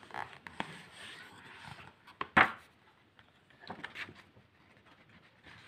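A hardcover picture book being handled and opened: a few light taps and rustles, one sharper noise about two and a half seconds in as the cover is turned, and soft paper rustling around four seconds in.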